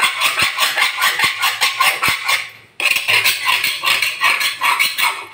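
Steel kitchen knife scraped rapidly back and forth along the edge of an iron vili blade to sharpen it, about four rasping strokes a second, with a short break nearly three seconds in.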